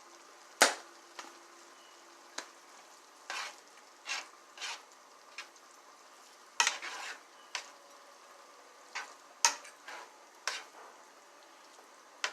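A utensil stirring in a pot of cooking vegetables, with about a dozen short scrapes and knocks against the pot at irregular intervals; the sharpest knock comes about half a second in.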